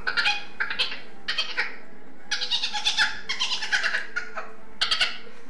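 Dolphin chatter sound effect: rapid high squeaky clicks and chirps in about six short bursts.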